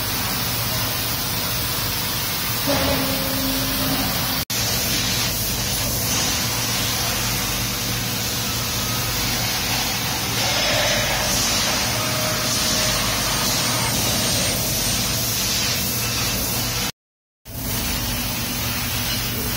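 TRUMPF TRUMATIC L 2510 CNC laser cutting machine running: a steady hiss over a low hum, cut by a brief gap near the end.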